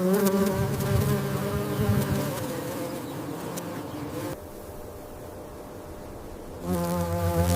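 An insect's wings buzzing in flight: a steady, low, pitched drone that drops away about four seconds in and comes back louder near the end.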